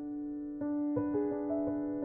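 Background keyboard music in a piano sound: a few slow notes struck about a second in over a held low note.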